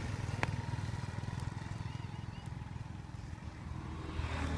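A small engine running steadily with a low, even pulse, and one sharp click about half a second in.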